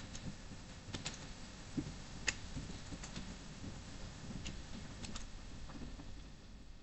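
Computer keyboard keys being typed: a handful of separate, unhurried keystrokes, faint over low room hum.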